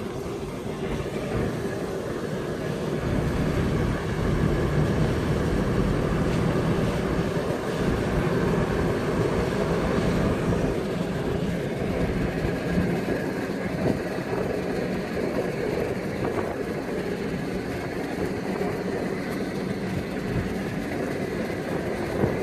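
Cab noise of a Toyota Land Cruiser 80 series (FZJ80) driving on a paved road: steady tyre rumble and wind rush through an open side window, with the inline-six engine running underneath. It gets louder about three seconds in, then holds.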